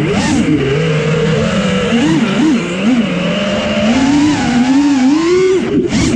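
Brushless motors and propellers of a 4S FPV racing quadcopter, heard close up from on board, whining with a pitch that keeps rising and falling as the throttle is worked through flips and dives, with wind rush over the microphone.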